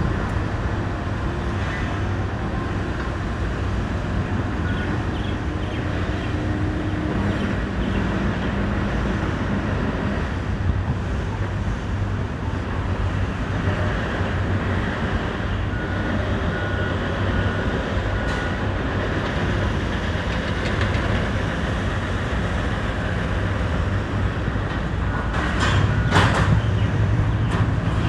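Steady rumble of heavy city traffic, with a louder passing vehicle near the end.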